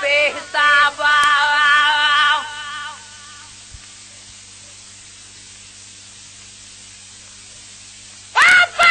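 A solo voice singing a Sindhi devotional song, ending on a long held note that trails off about three seconds in. A few seconds of steady low hum and hiss follow, and the singing comes back in near the end.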